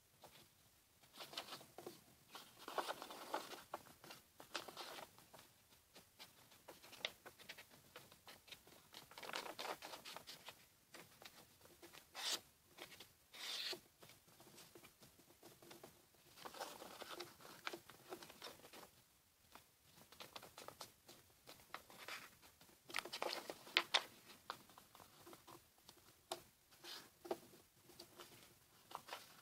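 A sheet of paper being handled and folded on a wooden table: intermittent rustling and sliding, with a few sharp crisp snaps as creases are pressed down.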